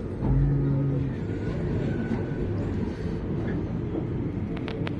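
Passenger train running, its steady low rumble heard from inside the coach. A short low hum comes in about a third of a second in, and a few sharp clicks follow near the end.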